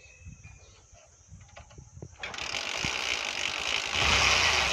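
Hero Glamour motorcycle being kick-started: light clicking and ratcheting from the kick-start mechanism, then about two seconds in a loud rushing noise sets in and grows louder near the end.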